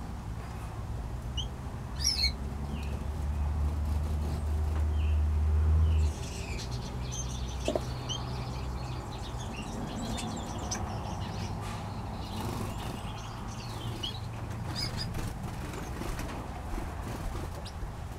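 Small aviary finches and parrots giving short, high chirps and calls scattered throughout, with a few brief wing flutters. A loud low rumble starts about two seconds in and cuts off suddenly around six seconds.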